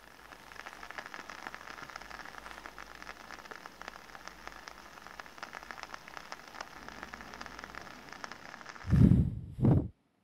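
Soy candle flame crackling and sputtering in a steady run of faint ticks, then two short, loud puffs of breath near the end that blow it out, after which the sound stops abruptly.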